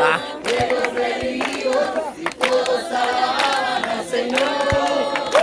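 A group of young people singing a chorus together, with hand claps.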